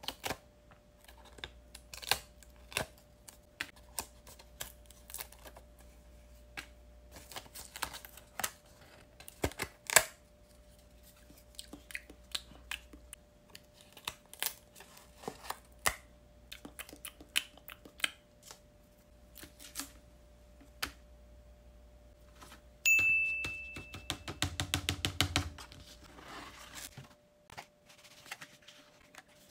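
Stiff paper cutouts handled close up: scattered light taps, clicks and rustles of paper. About three quarters of the way through, a sharp click with a short high beep, then a couple of seconds of denser, louder clatter.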